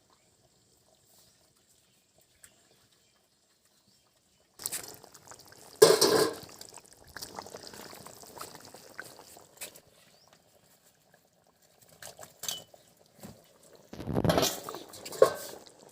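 Pieces of katla fish dropped into a pot of boiling potato curry: a loud splash about six seconds in, then the curry bubbling and dripping, and another loud splash near the end.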